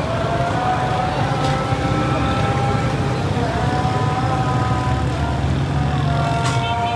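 Steady low engine rumble of street traffic, with a long, slightly wavering high tone held over it.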